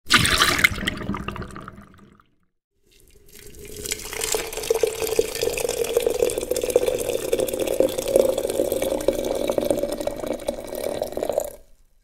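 Tea poured from a teapot into a cup: a short first splash that fades out over about two seconds, then after a brief pause a steady pouring stream for about eight seconds, its tone rising slightly before it stops.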